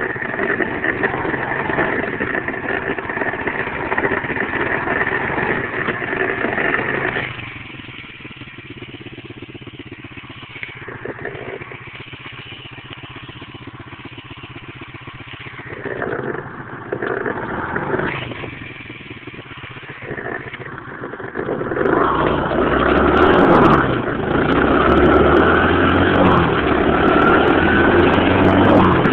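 107cc four-stroke single-cylinder pit bike engine running. It drops back to a low, quiet run about a quarter of the way in and is blipped briefly twice past the middle. Near the end it accelerates hard, its pitch rising repeatedly as it climbs through the gears.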